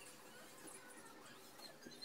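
Near silence: faint room tone with a few light, scattered scratchy ticks.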